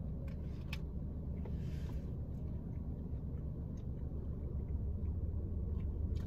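Low steady engine rumble heard from inside a car, with faint soft clicks of chewing.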